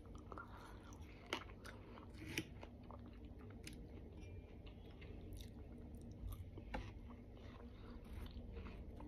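Faint chewing of a mouthful of watermelon, with a few sharp, scattered clicks of a fork against a stainless-steel bowl.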